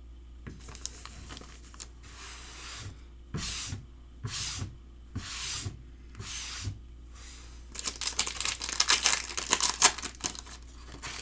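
Baseball card packs being torn open and their wrappers handled: a run of short ripping strokes, then a louder burst of dense crinkling about eight seconds in.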